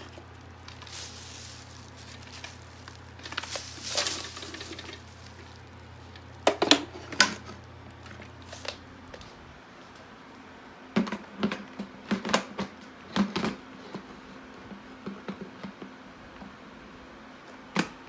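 Irregular sharp clicks and crackles in short clusters, over a low steady hum that stops about halfway.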